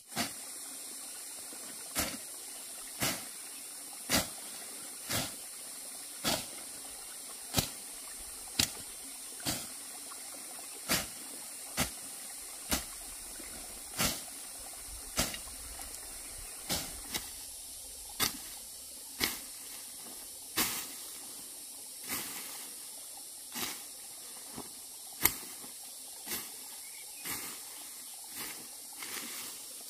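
A steady series of sharp knocks, about one a second, over a constant high hiss.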